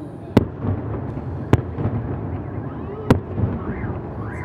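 Aerial firework shells bursting in a display: three sharp bangs a second or so apart, over a continuous low rumble of more distant bursts.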